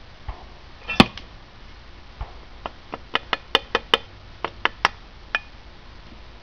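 A small hand tool knocking and tapping on metal at a fresh aluminum casting. There is one loud sharp knock about a second in, then from about two and a half seconds in a quick run of about ten sharp taps, four or five a second.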